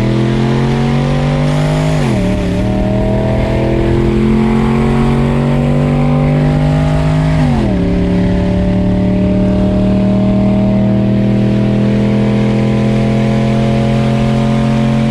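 Car engine at full throttle accelerating hard through the gears, heard from inside the cabin. The pitch climbs slowly and drops sharply at two upshifts, about two seconds in and about halfway through, then climbs again.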